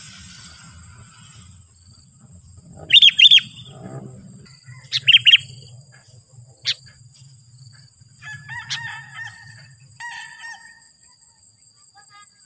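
Sooty-headed bulbul calling: two loud bursts of three quick notes about three and five seconds in, a single sharp note shortly after, then a softer run of chattering notes.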